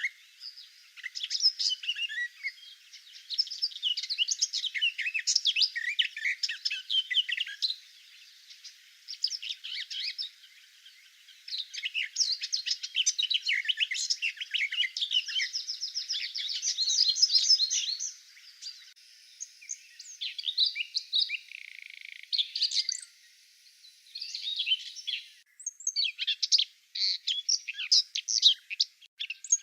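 Songbirds of a May forest singing: dense, quick chirps and trills from several birds at once, with a brief break near the end.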